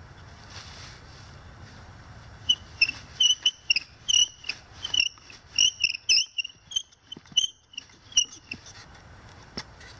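Cedar bow drill being worked: the spindle squeaks in quick back-and-forth strokes, two to three a second, starting a couple of seconds in and stopping a little before the end.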